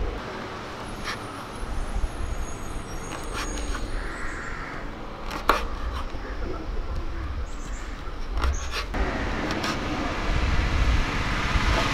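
Kitchen knife cutting through stacked raw papadums and tapping a wooden cutting board: irregular sharp clicks, the loudest about five and a half seconds in, over a steady low rumble.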